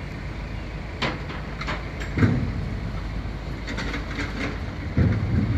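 Boat engine running with a steady low rumble under a scatter of knocks and clatters, with two louder thumps about two seconds in and near the end.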